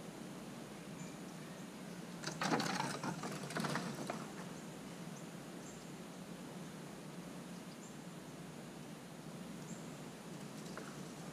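Eastern gray squirrel scrambling over dry leaves and ground litter: a burst of scratchy rustling lasting about two seconds, a couple of seconds in. Faint short high chirps recur over a low steady hum.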